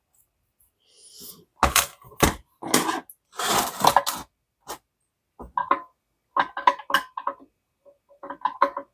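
Hand tools clinking, knocking and scraping on the metal parts of an old steam iron being taken apart: a few sharp knocks and a scrape, then runs of short ringing metal taps.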